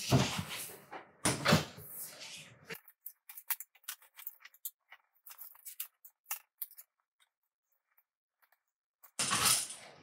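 Fish tape and plastic-sheathed electrical house wire being pulled through a wall cavity, scraping and rubbing against the drywall and the outlet box. The scraping is heaviest in the first three seconds, thins to scattered light clicks, and after a short quiet spell there is another scrape near the end.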